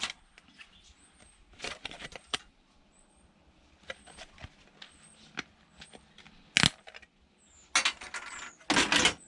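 Small metal and plastic parts of a DVD player being handled during teardown: scattered clicks and clinks, a single sharp click about two-thirds of the way in, and a louder clatter of parts near the end.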